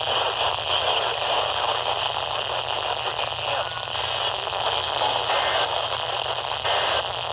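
Steady radio static: an off-air radio receiver's hiss with a low hum underneath and no clear program audio.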